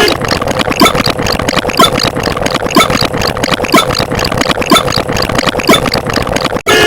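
Loud, engine-like rattling sound effect: a dense clatter of small clicks with a stronger knock about once a second, cutting off suddenly near the end.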